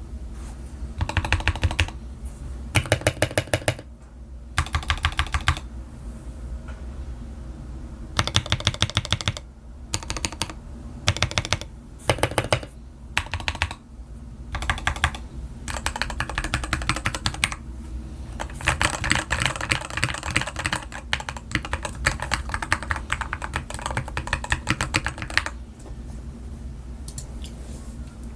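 LTC Nimbleback mechanical keyboard with Gateron Milky Yellow Pro linear switches, XDA keycaps and a silicone-filled, tape-modded case, typed on in fast bursts of keystrokes separated by short pauses. The typing stops near the end.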